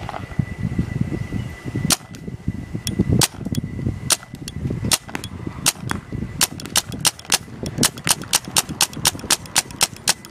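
Spyder Aggressor semi-automatic paintball marker firing: a few single shots spaced about a second apart, then from about halfway a rapid string of shots at about four a second.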